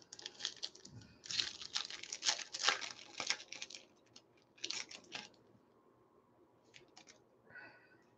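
Foil wrapper of a baseball card pack being torn open and crinkled: a run of crackling rustles through the first few seconds, one more short burst, then a few faint clicks near the end.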